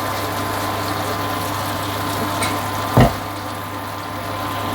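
A steady machine-like hum with a constant higher tone over it, broken once by a dull thump about three seconds in.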